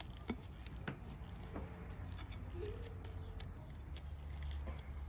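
Antique hand sheep shears, steel blades clicking and snipping shut, a dozen or so sharp clicks at uneven spacing over a low steady hum.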